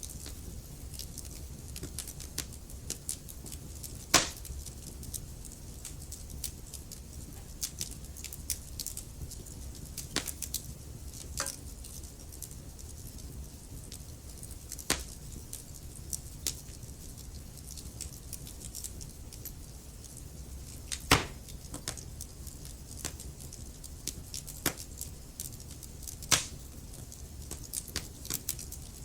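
Wood fire crackling in a fireplace: a steady low rumble of burning under many scattered small crackles, with three louder pops about four seconds in, about two-thirds of the way through, and near the end.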